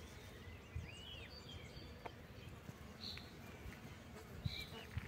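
Birds singing: scattered short chirps and whistled notes, a few in each second, over a faint low background rumble.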